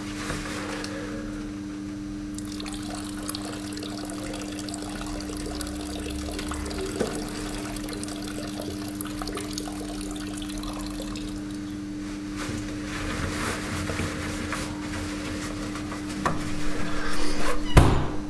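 Water running steadily for several seconds, then stopping, over a constant low hum, with a single loud knock near the end.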